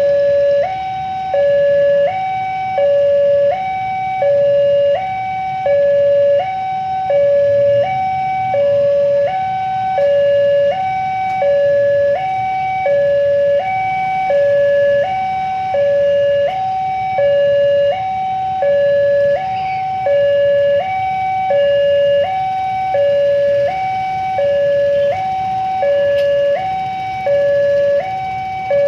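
Railway level-crossing warning alarm sounding continuously, an electronic two-tone signal alternating between a low and a high note about every 0.7 s, warning that a train is approaching while the barriers are down. A low rumble of idling motorcycle engines lies underneath.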